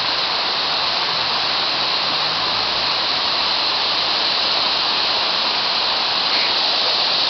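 Steady, even rush of falling water, as from a forest waterfall or cascading stream.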